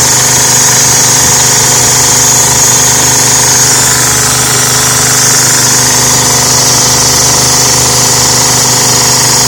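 High-pressure pump system running steadily in pressure-relief mode: a loud, even machine hum with a strong high hiss.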